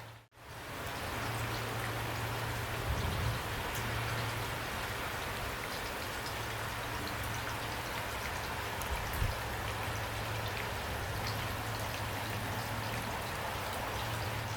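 Heavy rain falling steadily, a dense even hiss of drops with a low steady hum underneath. The sound cuts out for a split second just after the start.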